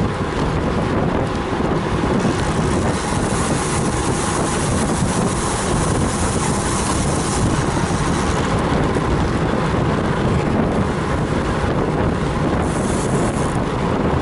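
Steady wind rushing over the microphone of a camera riding on a road bike at speed in a group of cyclists.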